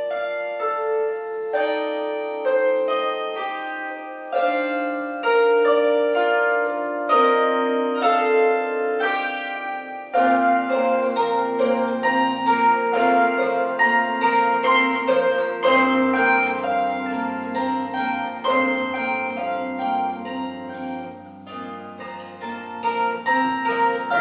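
A large box zither plucked by hand, playing a melody of ringing notes. About ten seconds in the playing grows louder and fuller, with low bass notes added beneath.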